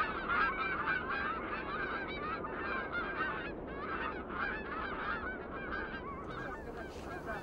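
A flock of birds calling: many short overlapping calls that thin out near the end.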